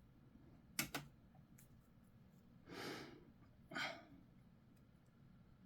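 Quiet handling of plastic miniature parts: two sharp clicks close together about a second in, then two short breaths.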